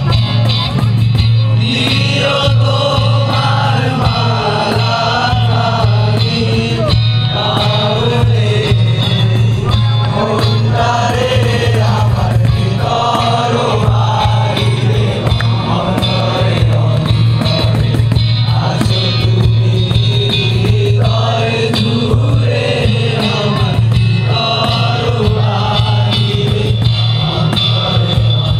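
A group of young men singing a song together, accompanied by acoustic guitars and a cajon beat, with a steady low hum underneath.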